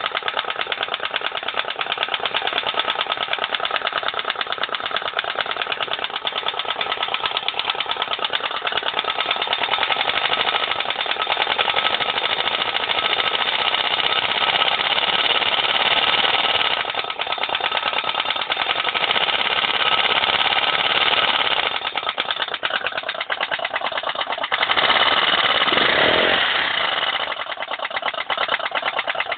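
Viper Zubr motorcycle engine running with a knock, revved up several times, the highest rev near the end before it drops back to a lower speed.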